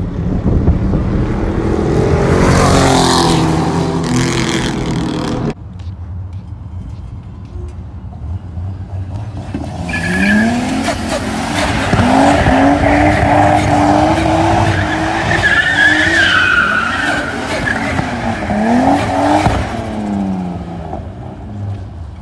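RB-swapped Nissan S14's straight-six engine revving up and down hard while the car drifts, its tyres squealing. The sound cuts off suddenly about five seconds in, stays quieter for a few seconds, then the revving and tyre squeal come back with the engine pitch rising and falling again and again.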